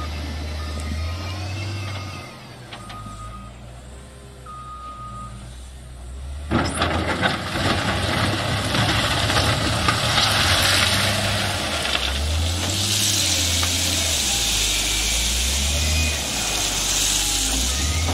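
Caterpillar 950 GC wheel loader's diesel engine running, with its reversing alarm beeping. About six seconds in, a sudden loud scraping and crunching starts as the bucket pushes through crushed basalt stone, with stone rattling off the bucket edge near the end.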